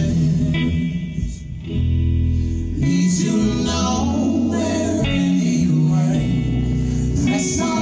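Live band playing a slow song: plucked guitar under several singers' voices in harmony. The music dips briefly about a second and a half in, then swells again.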